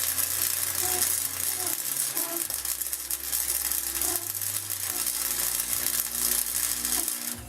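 Electric welding on an ATV swing arm: a steady crackling sizzle from the arc, with a low hum that cuts in and out several times.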